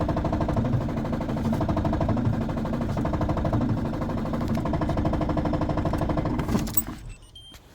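Peugeot Expert 2.0 HDi four-cylinder turbodiesel idling with a steady rapid knock, the knocking noise the owner is chasing at idle. The sound drops away about seven seconds in.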